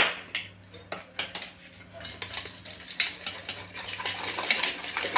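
Wire whisk mixing thick cupcake batter in a stainless steel bowl, its wires scraping and clinking against the metal. It opens with a sharp clink and another about a second later, then turns to quick, steady whisking from about two seconds in.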